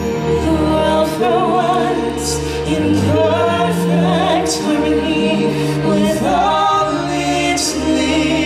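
Live stage-show song: singers with wide vibrato over an amplified musical backing with sustained bass notes.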